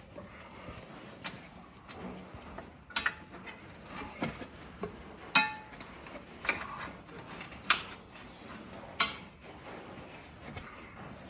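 Metal clinks of bolts and a wrench against the steel plow-mount bracket under the side-by-side: about seven sharp clicks spaced roughly a second apart, one ringing briefly.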